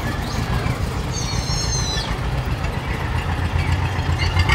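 Tractor diesel engine running steadily with an even low chugging, and a brief high-pitched chirping about a second in.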